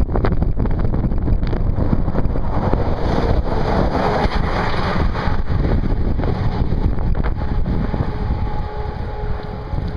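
Wind buffeting the microphone of a bicycle riding along a highway shoulder, a loud steady rumble that swells in the middle and eases a little near the end.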